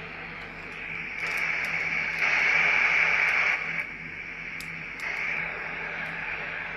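Radio receiver hissing with static, swelling louder about a second in and loudest in the middle before falling back, with a few faint clicks over a low steady hum.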